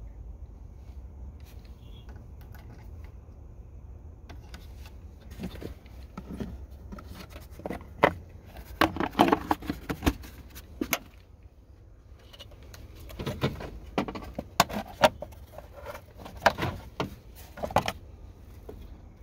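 Hard plastic clicking, knocking and rattling as the Trailblazer's underhood fuse box parts and plastic covers are handled and snapped into place. It comes in two clusters of sharp clicks, about five to eleven seconds in and again from about thirteen to eighteen seconds, over a low steady rumble.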